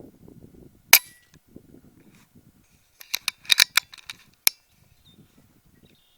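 A single sharp shot from a RAW HM1000X .30 calibre PCP air rifle about a second in, followed from about three seconds in by a quick run of sharp clicks and one more snap.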